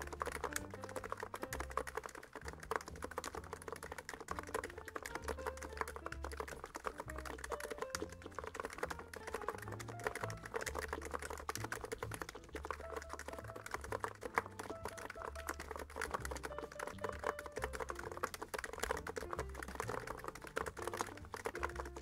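Continuous fast typing on a NiZ X99 Pro electrostatic capacitive (EC) keyboard: a dense stream of quick, soft keystrokes with little case resonance. Soft background music plays underneath.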